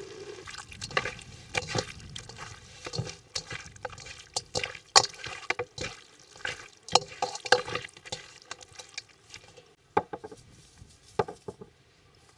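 Cooking spoon knocking and scraping against a cooking pot as food is stirred: irregular clicks and knocks that thin out and stop shortly before the end.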